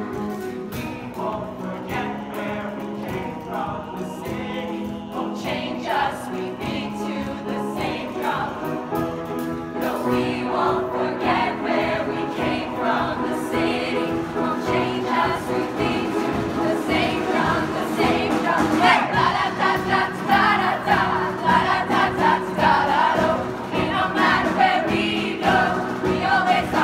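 A high school show choir singing in harmony, many voices holding chords together, growing louder through the second half.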